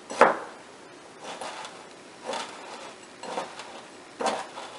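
Hands squeezing and working damp, crumbly bath bomb mixture in a small glass bowl: soft scrunching rubs about once a second, with a sharp knock just after the start.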